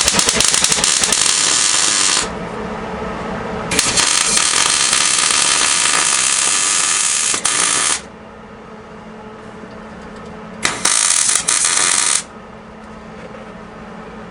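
Welding arc crackling and sizzling in three bursts of welding, a short one at the start, a longer one of about four seconds in the middle and a brief one near the end, with a quieter steady hum in the pauses between.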